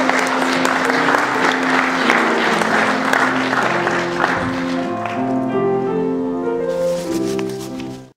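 Audience applauding over instrumental keyboard music; the applause dies away about five seconds in, leaving the sustained notes of the music, which cut off suddenly near the end.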